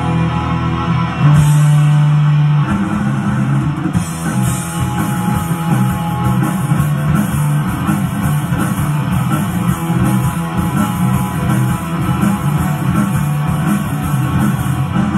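Live rock band playing electric guitars, bass and drums. A held low note about a second in gives way to the full band driving along with a steady beat from about four seconds in.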